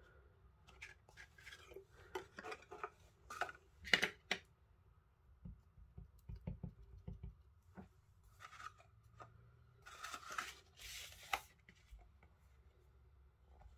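Faint handling sounds of clear stamps on an acrylic stamp block being lifted, tapped and set down on card and paper: scattered light clicks and taps, the sharpest knock about four seconds in, and a longer paper rustle around ten to eleven seconds in.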